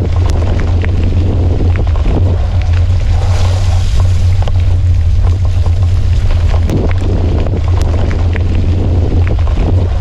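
Bicycle rolling over a wet dirt trail, heard through a handlebar-mounted camera: a heavy steady rumble of wind and riding noise on the microphone, with scattered small knocks and rattles from the bike over bumps.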